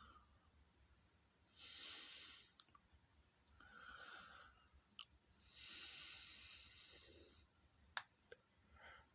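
Faint, slow breathing: two long hissing breaths, a weaker one between them, and a few small sharp clicks near the end.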